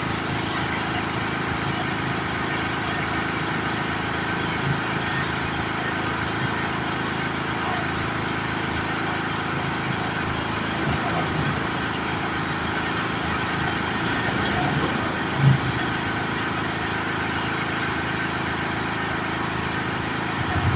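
Engine-driven power generator running steadily, with a brief low thump about three-quarters of the way through.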